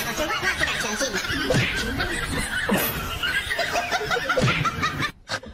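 Person laughing, on and off in quick repeated fits, stopping abruptly near the end.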